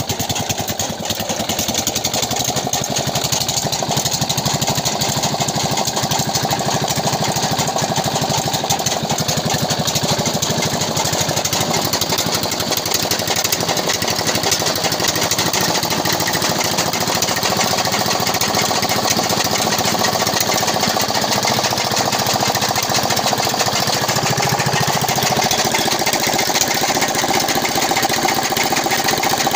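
4 hp Swan single-cylinder diesel engine with a large flywheel running steadily at speed after starting, a fast, even knocking beat.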